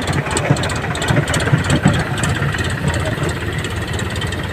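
Tractor's diesel engine running steadily with a low, even rumble.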